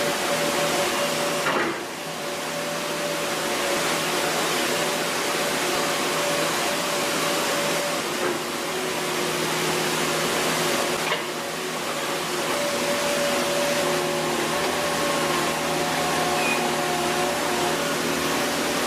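A machine running steadily: a loud, continuous rushing hiss with a steady hum underneath, easing off briefly twice.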